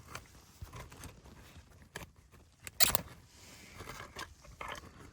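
Handling noise as the camera is moved and repositioned: scattered light clicks and rustles, with one sharp knock about three seconds in.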